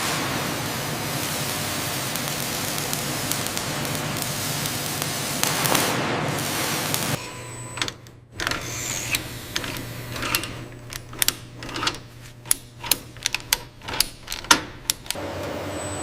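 Factory noise: a steady hiss over a low machine hum for about seven seconds, cutting off suddenly, then a run of sharp, irregular clicks and knocks of several a second.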